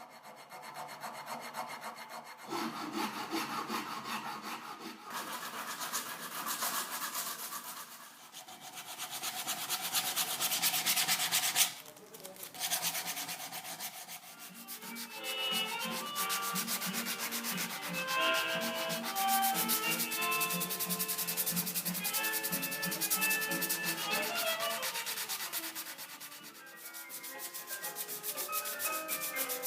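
Abrasive sanding, a continuous rasping rub with rapid fine strokes that swells and eases several times, briefly dropping out about twelve seconds in.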